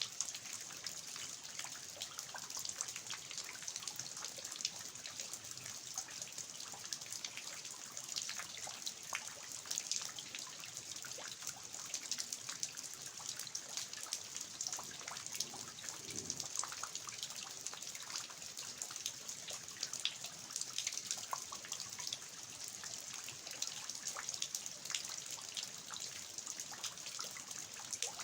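Steady rain falling on a garden, with many separate drops of eaves runoff pattering and dripping.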